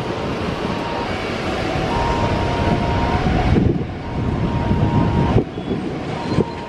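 Airbus A330neo's Rolls-Royce Trent 7000 jet engines at takeoff thrust, a loud steady jet roar from behind the aircraft as it begins its takeoff roll, with jet blast gusting across the microphone.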